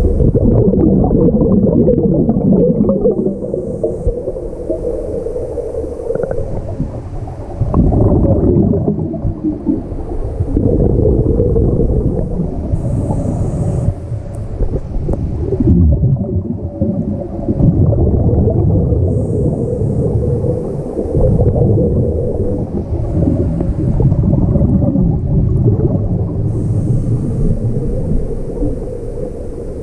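Scuba diver breathing through a regulator, heard underwater: a short hiss on each inhale, then the low rumbling gurgle of exhaled bubbles, repeating every six or seven seconds.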